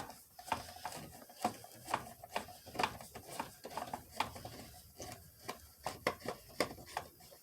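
Light, irregular clicking and tapping of a screwdriver backing a screw out of a plastic steering-column cover, with the plastic trim being handled.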